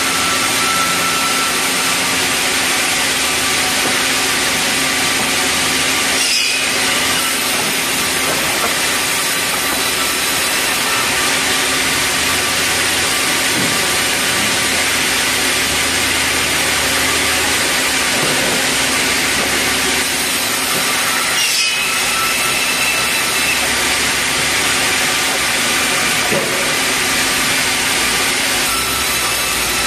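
Sawmill band saw ripping red meranti boards into planks: a steady, loud cutting noise.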